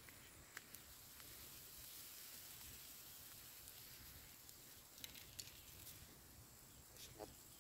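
Near silence: faint outdoor hiss with a few soft ticks.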